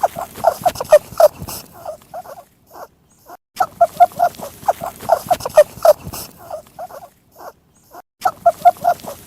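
Rabbit sound effect: a quick run of short squeaky calls. The same run plays over and over, about every four and a half seconds, with short pauses in between.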